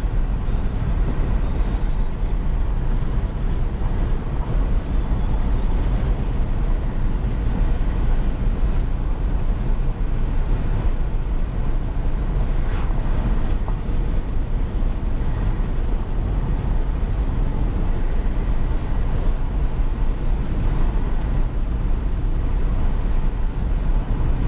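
Steady driving noise inside a Volkswagen car's cabin at highway speed: a deep, even rumble of tyres on the road and the engine, with no changes.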